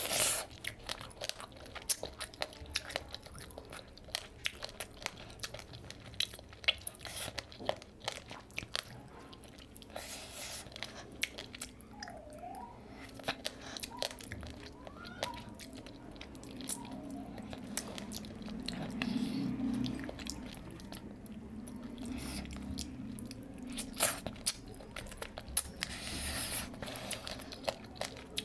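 Close-miked eating: a bite into a piece of curried whole fish with rice, then chewing with many short crunches and wet mouth clicks throughout.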